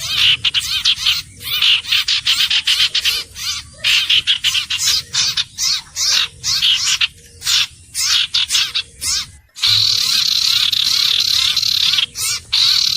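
Iora calling: rapid runs of repeated high chirps and chattering notes. Just before ten seconds in, a brief gap is followed by a sudden, continuous dense stretch of song.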